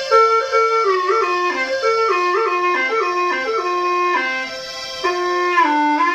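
F-key hulusi (Chinese gourd flute) playing a slow melody, moving in steps between held notes, with a dip to lower notes about four seconds in and again near the end.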